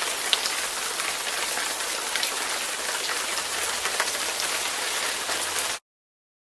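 Steady rain falling, an even hiss with a few sharper drop ticks, that cuts off suddenly near the end.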